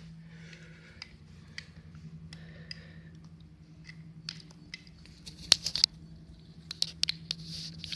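Handling noise of a phone charging cable being handled and plugged in: light clicks and rubbing, with sharper clicks from about five seconds in, over a steady low hum.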